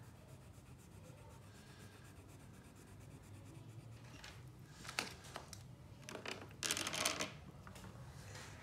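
Pencil scratching lightly on paper as the girl's overalls are shaded green. There is a sharp tap about five seconds in, then a short, louder rustle and clatter around seven seconds as the hand leaves off colouring and reaches across the page.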